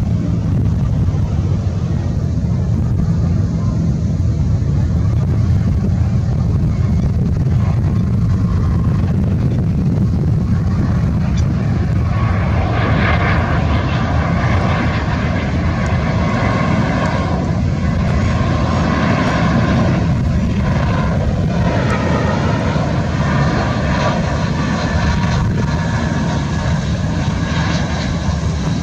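Jet engines of a British Airways Airbus A320-family airliner on final approach with gear down, passing close by: a steady low rumble, joined about twelve seconds in by a growing engine whine of several tones that wavers and dips slightly in pitch as the jet goes by.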